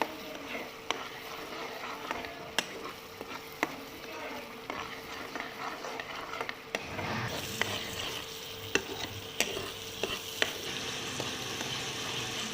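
Ground onion paste sizzling as it fries in hot oil in a pan, stirred with a spatula that clicks and scrapes against the pan every second or so. The sizzle grows louder about seven seconds in.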